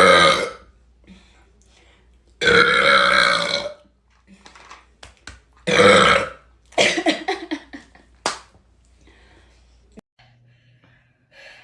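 Loud burps after gulping Sprite, the soda's carbonation coming back up: a short one at the start, a long drawn-out pitched one about two and a half seconds in, and another near six seconds, followed by a string of short choppy sounds.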